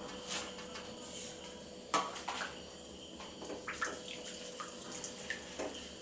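Hot oil sizzling in a kadhai with irregular crackles and pops as asafoetida goes into it, the sharpest crack about two seconds in.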